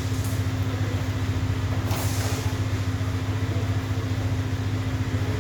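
A steady low engine hum, like a small engine idling evenly, with a brief hiss about two seconds in.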